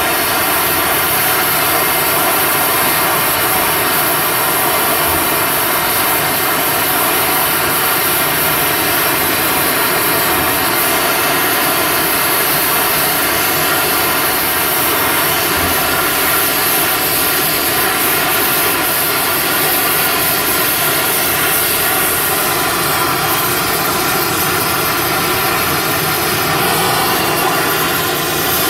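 Oxy-acetylene Fusewelder torch burning with a big neutral flame: a loud, steady rushing hiss, held on while a hardfacing rod is melted onto a preheated steel part.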